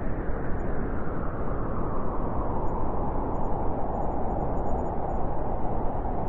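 Howling wind, a steady rush whose pitch slowly drops and settles lower toward the end.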